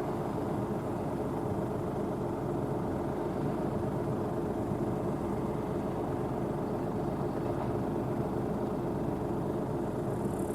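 Rostselmash NIVA SK-5 M1 combine harvester running steadily while harvesting barley: an even engine and machinery drone with a few held tones.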